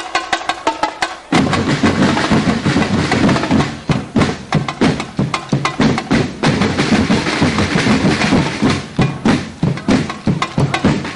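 Live percussion music for a tribal folk dance: rapid clacking wood-block-like strikes with ringing pitched notes at first, then, about a second in, drums come in and the beat turns louder and fuller.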